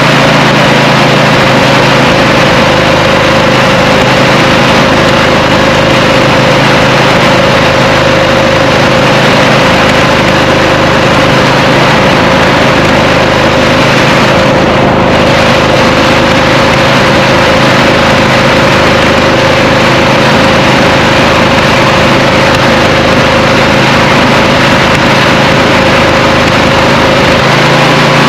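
24-horsepower Briggs & Stratton V-twin engine of a Craftsman riding mower running steadily. It is misfiring and running on only one cylinder, and unplugging the coil diode wires makes no difference.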